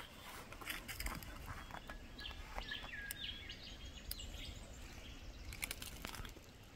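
Wild birds calling in quiet bush: a few short chirps and one whistle that slides down and then holds, about two to three seconds in, over faint rustling and scattered clicks.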